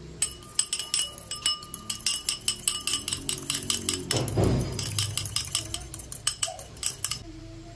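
Metal fork stirring sauce in a bowl, clinking against its sides in a quick, uneven run of ringing clinks. A louder scraping rub comes a little past halfway. The clinking stops shortly before the end.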